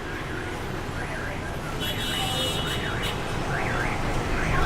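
An electronic alarm warbling up and down in pitch about twice a second, over steady city street traffic noise. A short high beep sounds about two seconds in.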